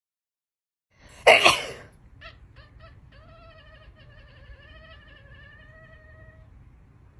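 A sharp, loud sneeze, then a domestic cat answers it: three short cries followed by a long, wavering yowl of protest lasting about three seconds.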